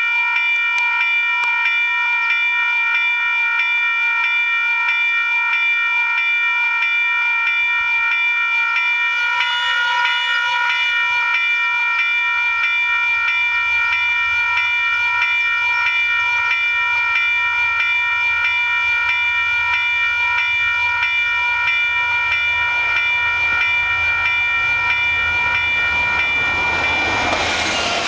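Level-crossing warning bell ringing steadily in rapid pulses. From about ten seconds in, the low rumble of an approaching train builds underneath, and the train's noise swells near the end as it reaches the crossing.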